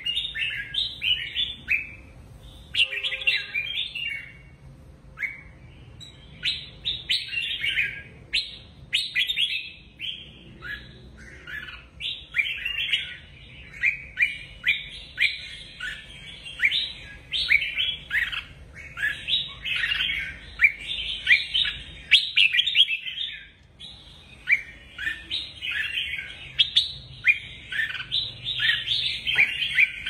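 Red-whiskered bulbul singing: rapid runs of bright, chirpy whistled phrases, almost without pause, broken by short gaps about two and five seconds in and again a little past the twenty-second mark.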